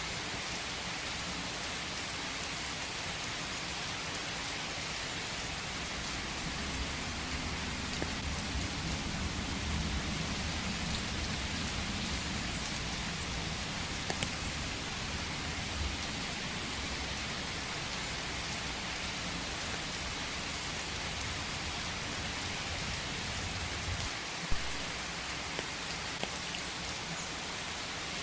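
Steady rain falling, an even hiss with scattered sharp drop ticks. A low rumble swells and fades in the first half.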